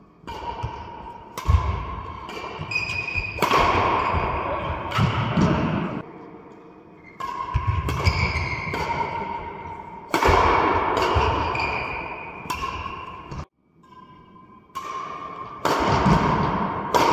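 Badminton rally: rackets striking the shuttlecock again and again, with players' quick footfalls on the court, echoing in a large hall.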